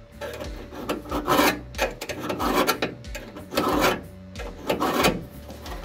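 Steel scriber scratching a cut line onto a piece of steel angle held against the car's floor metal, in repeated scraping strokes about twice a second.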